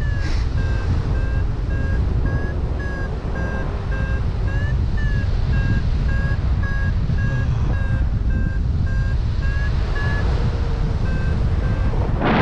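Paragliding variometer beeping in short tones about twice a second, the pitch shifting slightly, the beeping that signals the glider is climbing. Heavy wind noise on the microphone runs underneath.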